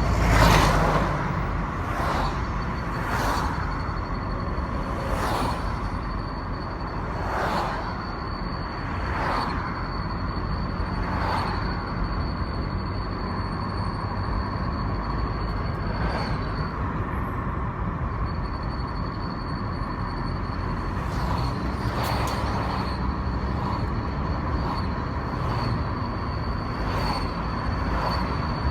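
VW Golf Mk5 on the move, with a thin, steady, high-pitched whistle over the road and engine noise that drops out for a moment a little past the halfway point, and occasional whooshes. The whistle comes on only once the car has driven some 20 km, is absent under braking and at idle, and is strongest at 30–80 km/h whatever the gear.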